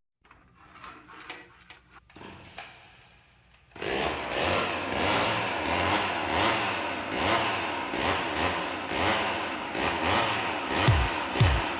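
Faint scattered sounds, then about four seconds in a chainsaw starts running, its pitch rising and falling again and again as it is revved. Near the end a deep bass drum beat comes in under it.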